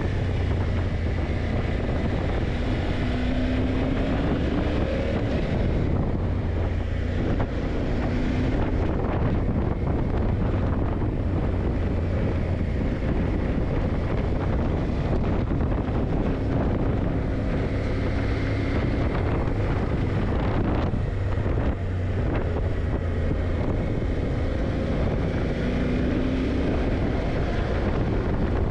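Yamaha TDM900's parallel-twin engine running under way, its note rising and falling a few times, with two brief dips about 7 and 21 seconds in. Heavy wind noise on the microphone.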